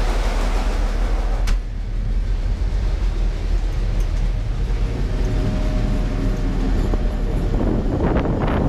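M62 diesel locomotive's two-stroke V12 engine running with a steady low drone. It is loud and harsh at first, then muffled after a door clicks shut about a second and a half in. Near the end, rushing wind and rolling noise come in as the locomotive moves along the track.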